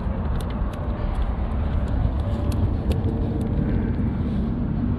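Steady low rumble of road traffic, with a few light clicks as the just-landed fish is handled.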